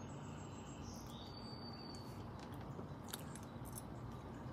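Faint outdoor porch ambience: a steady low hum and hiss, with a few faint high chirps in the first second or so.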